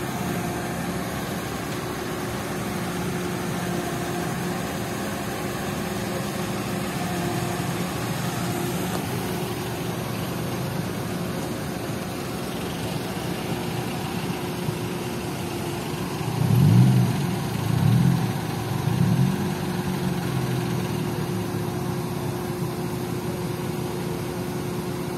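Mobile crane's diesel engine running steadily at low revs. It revs up briefly three times about two-thirds of the way through as the boom is raised.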